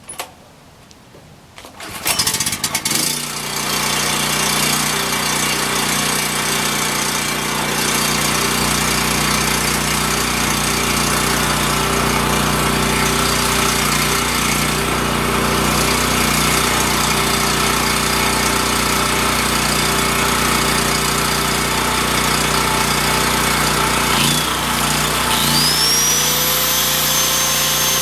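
Portable generator engine starts about two seconds in and runs steadily. Near the end a mini grinder spins up, its whine rising quickly and then holding a high steady pitch.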